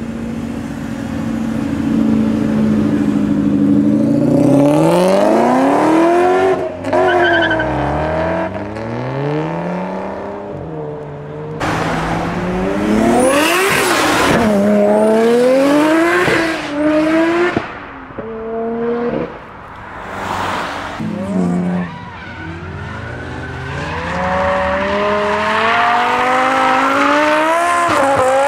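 Several engine-swapped cars in turn, including a BMW E30 and a Nissan Silvia S15, accelerating hard. Each engine revs up with rising pitch, drops at gear changes and climbs again, with some tyre squeal. Abrupt cuts jump from one car to the next.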